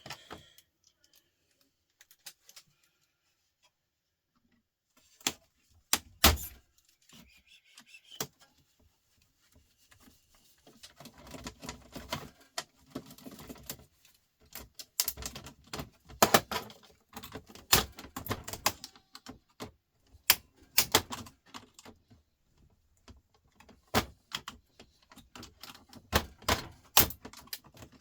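Small metal and plastic parts of a DVD drive mechanism clicking and rattling as it is taken apart by hand. After a few quiet seconds come several separate sharp clicks, then irregular bursts of clicking and rattling.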